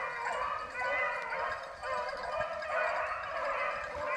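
A pack of rabbit-hunting dogs baying together in a steady chorus of overlapping calls while running a rabbit's trail.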